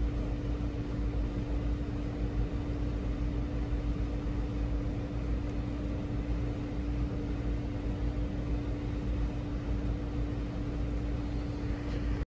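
A steady machine hum: one constant mid-pitched tone over a low rumble and an even hiss, with no change throughout.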